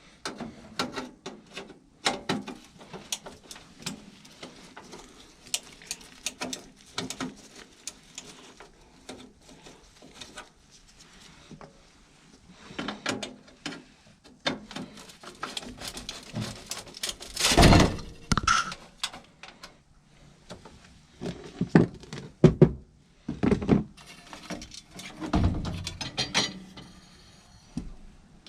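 Irregular clicks, knocks and thunks of hand work with tools and metal parts during furnace inducer motor replacement, with one louder knock a little past the middle.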